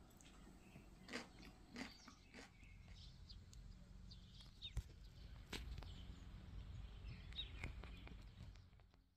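Faint outdoor ambience: a low rumble with a few short bird chirps, fading out near the end. A few soft clicks sound in the first couple of seconds.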